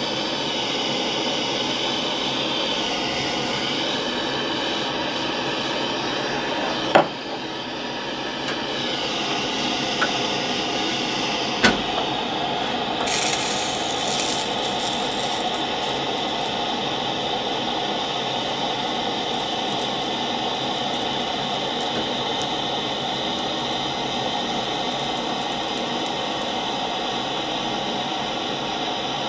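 Gas-fired portable soldering iron burning with a steady hiss while heating a copper joint, with two sharp taps and a brief higher hiss partway through.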